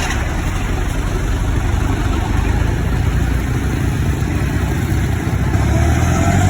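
An engine running steadily, growing a little louder and rising slightly in pitch near the end.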